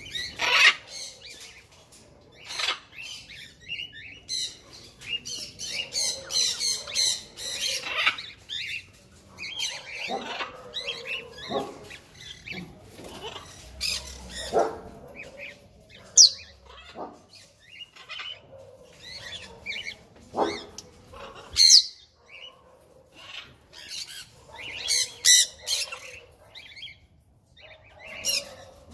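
Pet parrots in an aviary calling: a busy run of chirps and chatter, broken by several sharp, loud screeches.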